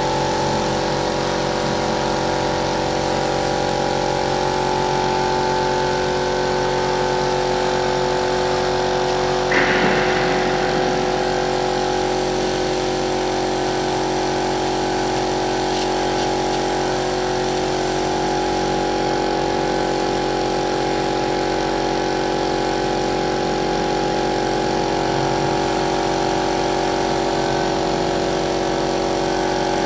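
Gravity-feed paint spray gun hissing steadily as it sprays, over the steady hum of the air compressor that feeds it. A single brief clank about ten seconds in.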